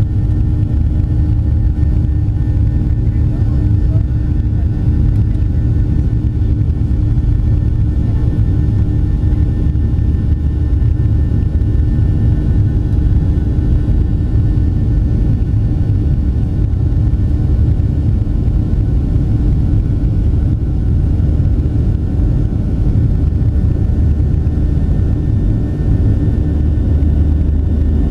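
Jet airliner cabin noise during the climb after takeoff: the engines and rushing air make a steady deep rumble with a constant hum over it.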